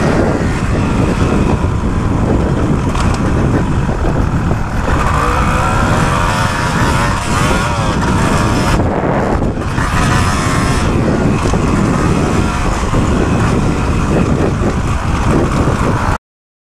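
Kawasaki KX250 motocross bike engine running hard under throttle, its pitch rising and falling as the throttle opens and closes. The sound cuts off suddenly near the end.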